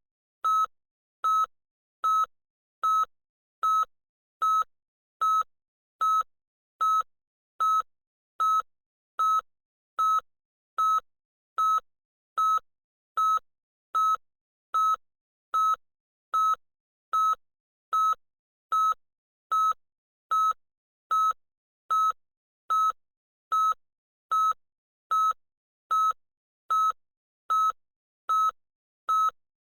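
Electronic beeper sounding loud short beeps, all at the same high pitch, repeating evenly a little more than once a second.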